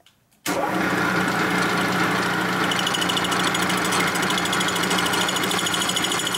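Milling machine running steadily, its spindle turning a cutter that sweeps the welded aluminium combustion chamber of a Harley-Davidson panhead cylinder head in light 25-thou passes. The sound starts abruptly about half a second in, and a fine, fast high rattle joins at about two and a half seconds.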